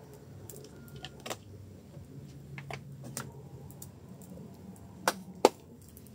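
Light scattered clicks and knocks from work at a wood-fired clay stove, over a low steady background, with two sharp clacks in quick succession about five seconds in.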